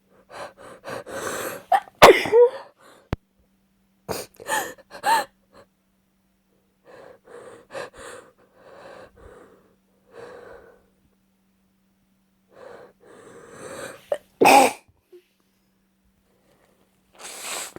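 A woman with a cold sneezing. Gasping, hitching breaths build to a sneeze about two seconds in, with more short bursts around four to five seconds. After a longer run of softer breaths, a loud sneeze comes a few seconds before the end.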